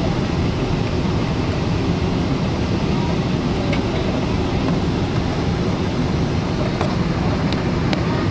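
Steady low rumble of a Boeing airliner landing, with a few faint clicks near the end.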